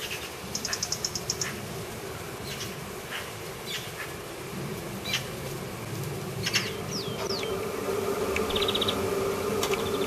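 Small garden songbirds calling: quick high trills, short chirps and two down-slurred whistles, with a low steady hum growing louder in the second half.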